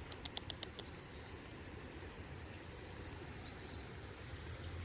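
A small songbird gives a quick run of about six short high notes near the start, then one faint high note about three and a half seconds in, over faint steady low background noise.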